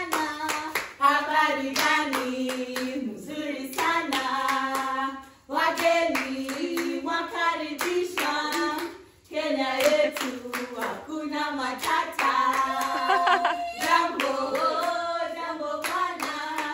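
A group of women singing a song together and clapping their hands along to it, with two short breaks in the singing about five and nine seconds in.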